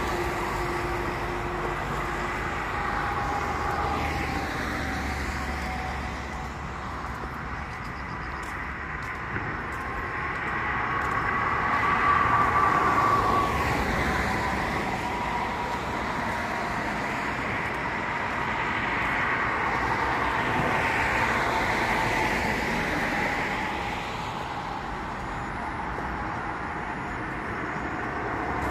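Road traffic going past: a continuous wash of tyre and engine noise that swells and fades as vehicles pass, loudest about twelve seconds in.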